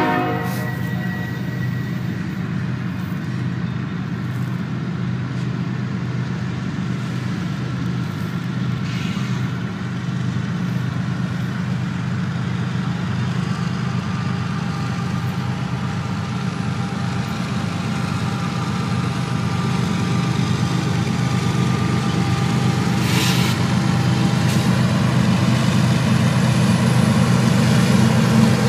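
Union Pacific diesel locomotives pulling a train toward the listener: a steady low engine drone that grows louder near the end as the units draw close. There is one short hiss about three-quarters of the way through.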